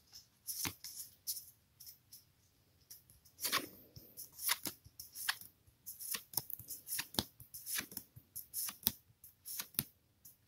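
Pokémon trading cards being slid one at a time off a hand-held stack and onto its front, an irregular run of short card swishes and flicks, one to three a second.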